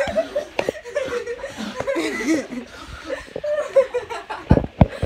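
Children laughing and chuckling, with two dull thumps close together near the end.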